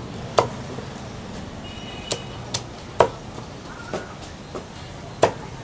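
Meat cleaver chopping chicken pieces on a round wooden chopping block: about seven sharp chops at uneven intervals, the loudest near the start, about three seconds in and near the end.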